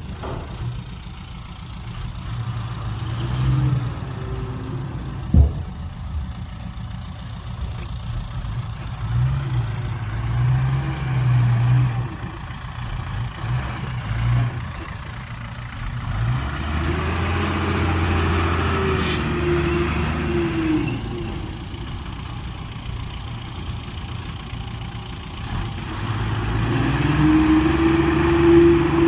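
Heavy diesel engines of earthmoving machines idling and revving, their pitch rising and falling again and again, with a single sharp knock about five seconds in.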